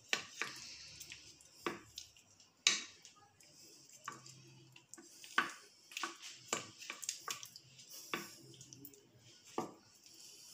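Wooden spoon knocking and scraping against a glass baking dish while thick béchamel sauce is spread over the dish, a series of irregular light knocks with soft scraping between them.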